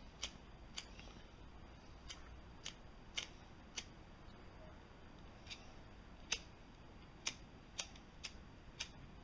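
Flint wheel of an empty disposable lighter struck again and again, about a dozen sharp clicks roughly half a second to a second apart, throwing sparks to light a cotton fire starter.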